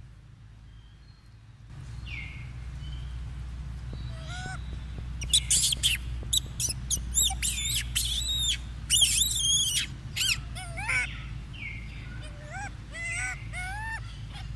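Baby macaque screaming while held down by its mother: a run of loud, shrill screams in the middle, then shorter rising-and-falling squeals near the end.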